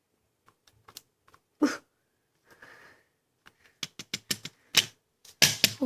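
A stapler clacking down on a magic frog toy, which cracks and shatters like glass: a series of sharp clicks and cracks, with one loud crack about two seconds in and a dense cluster near the end.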